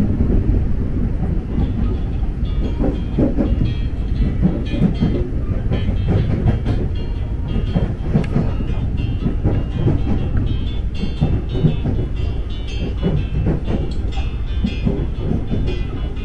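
KRL Commuter Line electric train running on the tracks: a steady heavy rumble with irregular clicks and knocks of the wheels over the rails.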